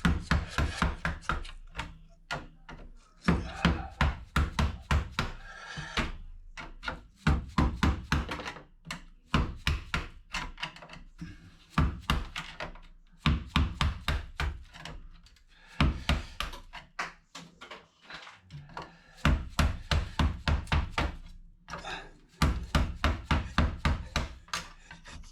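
Rapid runs of hard knocking on a motherboard clamped in a vise as its components are knocked loose, in repeated bursts of quick strikes with short pauses between.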